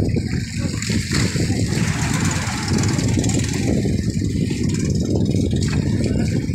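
Boat engine idling steadily, a low rough rumble.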